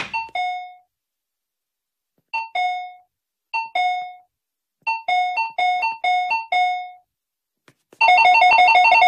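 Electronic two-tone "bing-bong" chime pressed over and over. A few separate bing-bongs come first, then four or five in quick succession, and from about eight seconds in a rapid unbroken string of chimes as it is mashed.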